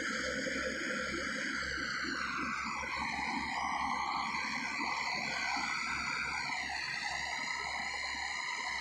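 Heavy construction machinery running: an excavator or bulldozer engine with a steady whine whose pitch shifts and dips about seven seconds in, over a low rumble.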